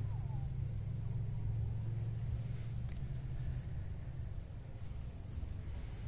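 Outdoor rural garden ambience: scattered faint, high-pitched chirps over a steady low rumble.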